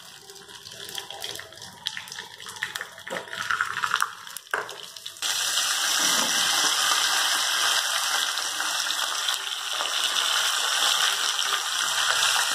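Mustard seeds crackling and popping in hot coconut oil in a small tempering pan. About five seconds in, a sudden loud, steady sizzle takes over as curry leaves go into the hot oil.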